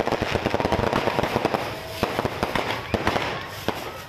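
Fireworks going off in quick succession: a dense, continuous run of sharp pops and bangs that thins briefly near the end.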